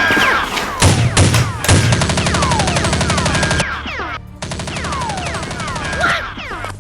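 Rapid automatic gunfire sound effects, dense strings of shots with short falling whistles among them, over a background music track; the shooting breaks off briefly about four seconds in and then resumes.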